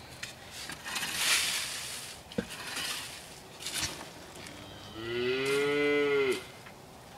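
A cow mooing once, one long call about five seconds in that arches up and then drops slightly in pitch before cutting off. Earlier, a loud scraping rush and a few sharp knocks come from work at the coop.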